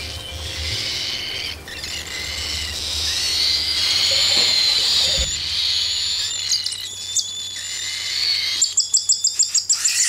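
Cockatiel chicks giving high-pitched begging calls, ending in a fast run of repeated chirps near the end.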